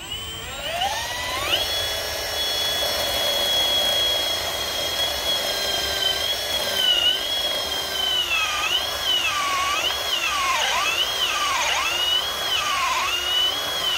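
Cordless drill with a hollow core bit drilling out a connector bar between cells of an industrial lead-acid battery. The motor whine climbs as it spins up and holds steady for a while. In the second half it dips and recovers again and again as the bit loads up in the cut.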